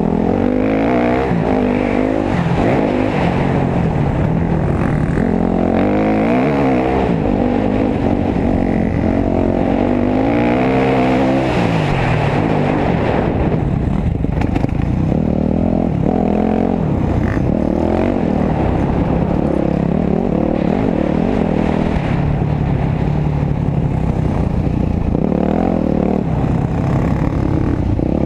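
Dirt bike engines revving up and falling back again and again as they ride a trail, the pitch rising and dropping with the throttle through the whole stretch.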